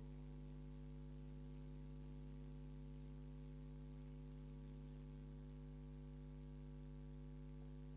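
Faint, steady electrical mains hum.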